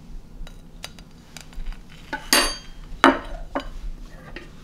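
Metal cake server and fork clinking against a small ceramic plate as it is set down on a wooden table: a few light clicks, then two sharp ringing clinks about two and three seconds in.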